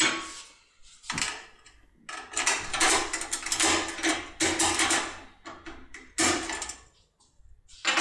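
A thin steel tool scraping and rattling in the keyway of a Securemme mortise lock, with a dense run of scraping in the middle and sharp metallic clicks before and after.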